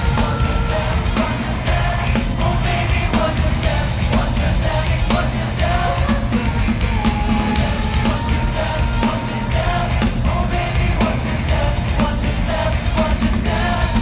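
Loud dance-pop song playing through a concert PA in a large hall, with a strong beat and a sung vocal line.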